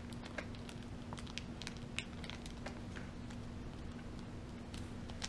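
Small scattered clicks and light rustling of fingers picking at plastic toy packaging to free a small accessory, over a steady low hum.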